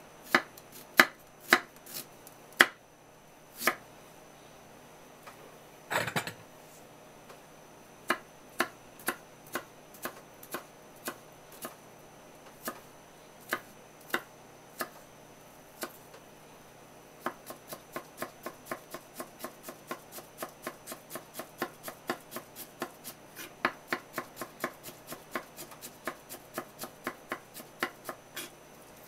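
Kitchen knife cutting peeled ginger on a wooden cutting board: a few separate slicing knocks, a brief scrape about six seconds in, then scattered cuts, and in the second half steady mincing at about three to four chops a second.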